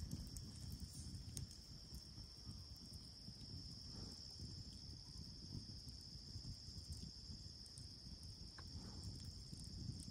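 Steady, high-pitched chorus of night insects in the woods, with a low rumbling noise underneath.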